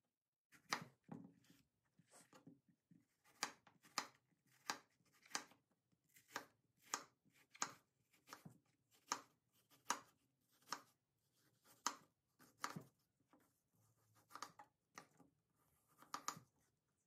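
Chef's knife slicing a peeled apple into wedges on an end-grain wooden cutting board, each cut ending in a sharp knock of the blade on the wood. The cuts come at an uneven pace, roughly one every two-thirds of a second.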